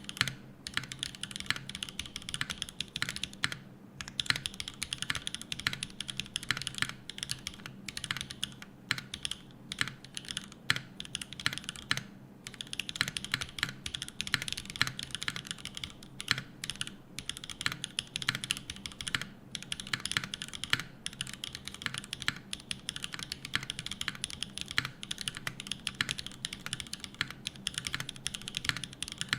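Fast, continuous typing on a gasket-mount 60% mechanical keyboard with a polycarbonate plate, Gateron Smoothies linear switches and GMK keycaps: a dense run of keystrokes with a couple of brief pauses.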